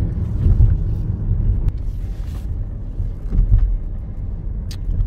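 Steady low rumble of road and engine noise inside a moving Mazda car's cabin at suburban speed, with a short hiss about two seconds in and a faint click near the end.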